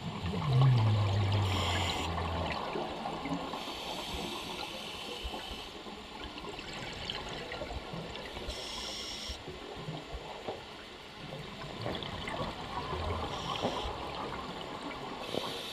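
Underwater sound of a scuba diver breathing through a regulator. A loud bubbling rush of exhaled air falls in pitch in the first two seconds, and several short hissing breaths follow over a steady watery background.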